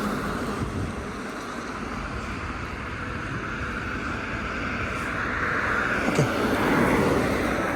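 Road traffic on wet pavement: a steady tyre hiss that grows louder as a vehicle approaches and passes near the end, then eases off.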